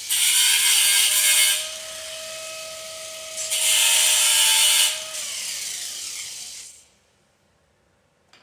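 Angle grinder grinding metal in two loud passes with the disc running free between them, then spinning down about six and a half seconds in.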